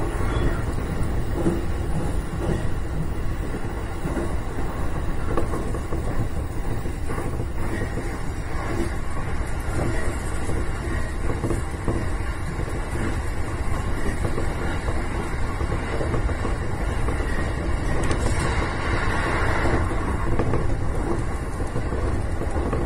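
Electric train running along the line, heard from the front cab: a steady rumble of wheels on rail, with a brief swell of hiss about three-quarters of the way through.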